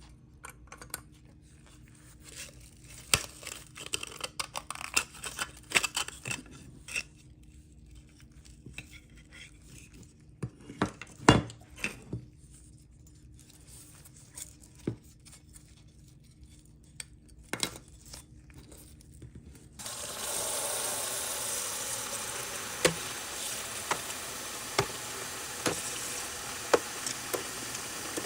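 Small clicks and taps of tools and small metal parts being handled, with one louder knock near the middle. About twenty seconds in, a steady hiss begins and runs on under a few more light clicks.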